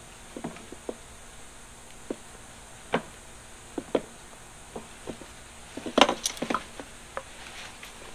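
Irregular light clicks and knocks of the carburetors being handled and worked onto the engine's intake, with a short cluster of louder knocks about six seconds in.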